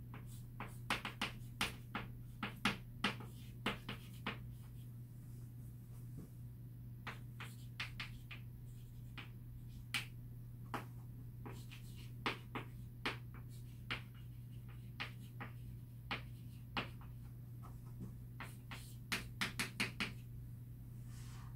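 Chalk writing on a blackboard: a long series of sharp clicks and taps as the chalk strikes and strokes the board, irregular and in places in quick runs, over a steady low hum.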